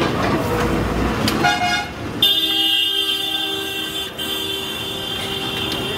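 Vehicle horn honking over street traffic noise: a short toot about a second and a half in, then a long steady blast from about two seconds in.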